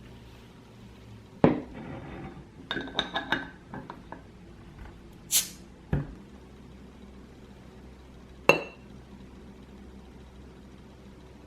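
Glass beer bottle and drinking glass set down and clinking on a table, then the bottle's crown cap prised off with a short hiss of escaping gas, followed by a knock and a sharp ringing click.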